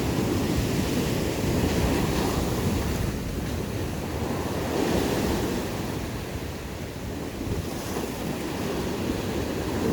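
Sea waves washing against shore rocks, rising and falling every few seconds, with wind buffeting the microphone.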